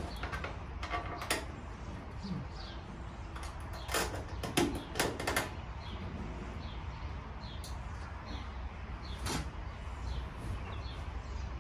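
Scattered knocks and clicks of hardware and tools being handled during truck work, clustered about four to five and a half seconds in, over a low steady hum.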